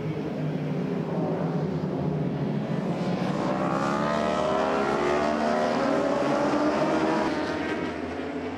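A pack of racing superbikes accelerating away from a corner. Their engine notes overlap and rise in pitch together, loudest a little past the middle, then fade near the end.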